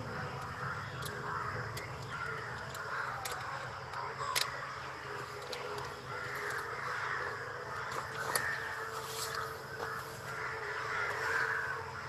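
Crows cawing repeatedly in the background of an outdoor field recording, over a steady hiss, heard through a screen-shared video's audio, with a few sharp clicks.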